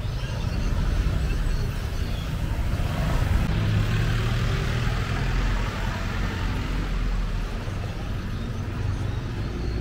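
Motor vehicle noise: a steady low engine rumble with road and traffic hiss, swelling slightly about four seconds in.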